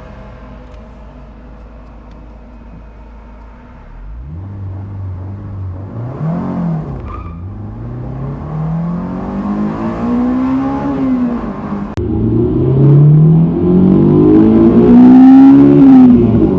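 Honda S2000's 2.0-litre inline-four running low and steady, then, about four seconds in, revving hard: the pitch climbs and falls back several times as the car accelerates and lifts off, growing louder toward the end.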